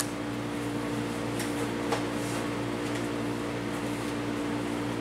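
Steady electrical hum of a Lincoln TIG welder switched on and idling, not welding. It holds a fixed pitch with several overtones. There is a short click at the very start and a faint tick about two seconds in.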